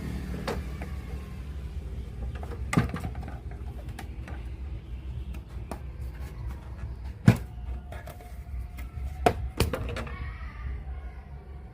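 Irregular clicks and a few sharp knocks from handling a JVC PC-W100 radio-cassette player during repair, over a steady low hum.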